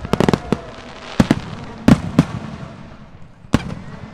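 Large aerial firework shells bursting: a rapid flurry of sharp cracks just after the start, then several separate loud bangs spread over the next few seconds, each trailing off in an echoing rumble.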